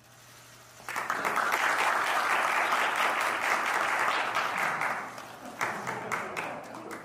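Applause from the people in the room, starting about a second in, full for about four seconds, then dying away into a few scattered claps.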